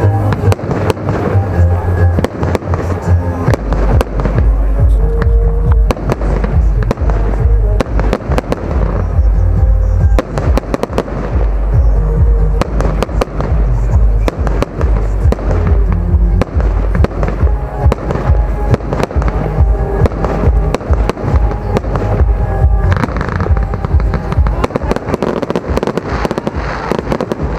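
Aerial fireworks display: a dense, continuous run of shell bursts and bangs.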